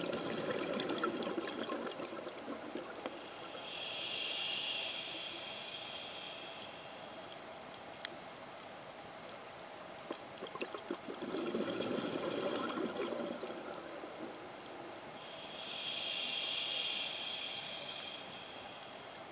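A scuba diver breathing through a regulator, heard underwater: two slow breath cycles, each a lower rushing sound followed a few seconds later by a louder, higher hiss. A single sharp click comes about eight seconds in.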